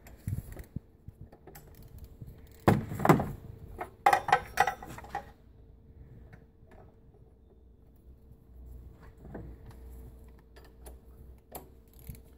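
Metal hand tools clinking and clicking as a ratchet and oil filter socket tool are worked on an oil filter housing cap: a louder knock about three seconds in, a quick run of clicks a second later, then a few scattered clicks.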